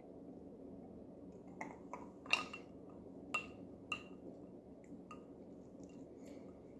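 Quiet room tone with about half a dozen small, sharp clicks as a drink on ice is sipped and tasted, the loudest a little over two seconds in.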